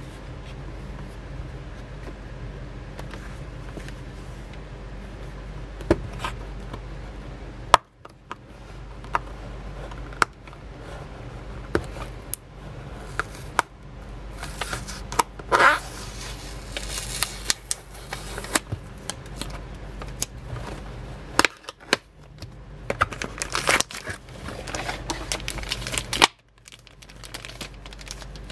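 A cardboard product box being handled and opened by hand: scattered clicks, taps and scraping of the flaps and packaging, over a steady low hum. Toward the end there is crinkling of a plastic bag.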